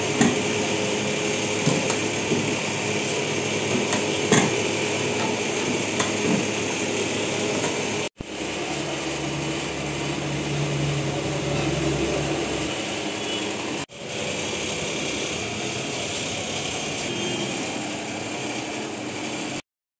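Steady rushing hiss of a large pot boiling hard on a stove burner, broken twice by brief cuts and stopping abruptly near the end.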